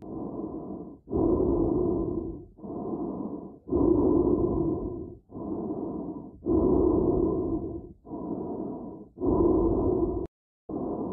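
Slow breathing sound effect, low and muffled: long in-and-out swells about every 1.3 s, alternating louder and softer, broken off briefly near the end.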